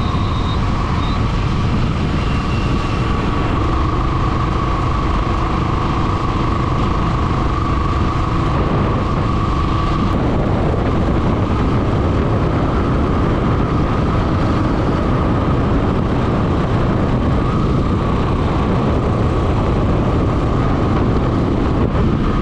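Royal Enfield motorcycle cruising steadily at road speed, heard from the bike with heavy wind rush on the microphone and a faint steady whine over it.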